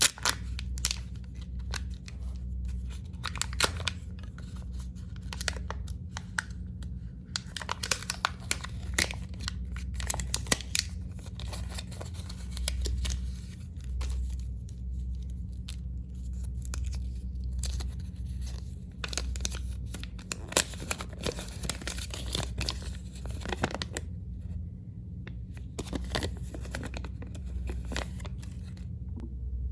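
Candy wrappers being crinkled and torn open, in irregular runs of crackles that thin out near the end, over a steady low hum.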